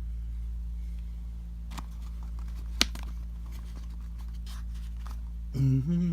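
A few small sharp clicks and taps, the loudest about three seconds in, as plastic spacers from a CPU cooler's mounting kit are fitted over the mounting bolts, over a steady low hum. A short voiced sound near the end.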